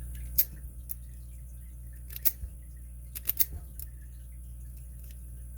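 Lock pick being zipped out across the pin stacks of a Master Lock 220 padlock: a few sharp metallic clicks, with a quick cluster of three a little past three seconds in.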